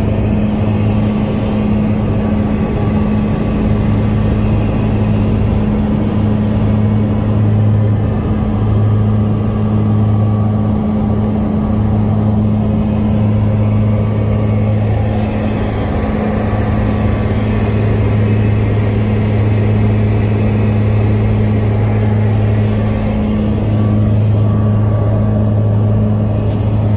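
Aircraft engines droning steadily, heard inside the passenger cabin: a loud, even hum with two deep steady tones that does not change.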